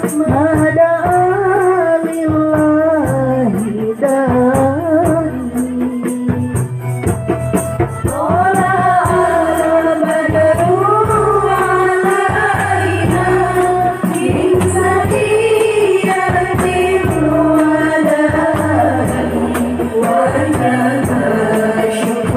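Sholawat devotional song sung over a group of terbang frame drums keeping a steady beat, with jingling percussion.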